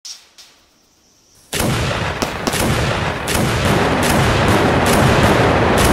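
Explosion sound effect for an animated logo intro: a brief faint swish at the start, then about a second and a half in a sudden loud blast that carries on as a steady rumble broken by repeated sharp cracks.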